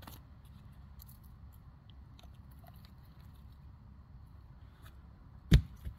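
Wood and bark handled by hand, with faint scrapes and light clicks, then a single loud thump about five and a half seconds in and a smaller knock just after it.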